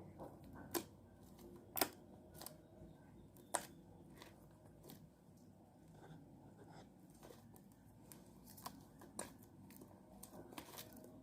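Slime being handled, squeezed and stretched by hand, giving faint, irregular sharp clicks and pops.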